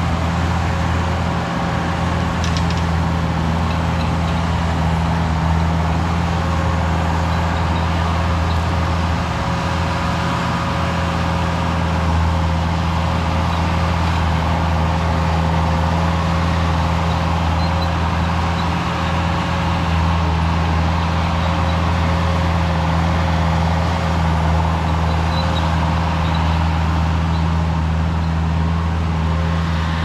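Bobcat 873 skid steer's diesel engine running steadily as the machine drives across grass and undergrowth, powering a quick-attach EZ Mow 72-inch brush cutter.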